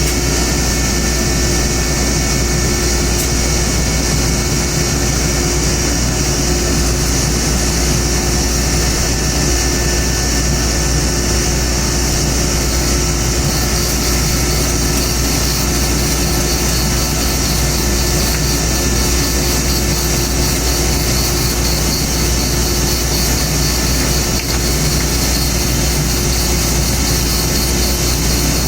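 An old woodworking machine used to trim wooden chopstick blanks to length, running with a steady, unbroken hum.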